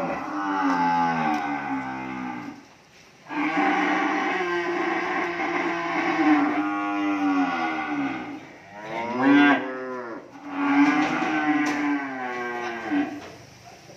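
Cattle mooing: four long calls one after another, with short pauses between them. The third call is shorter and rises then falls in pitch.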